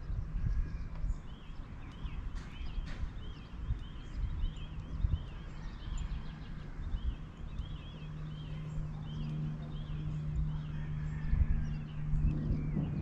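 Small birds chirping rapidly, many short high notes a second, over a low rumbling background. A steady low hum comes in about two-thirds of the way through.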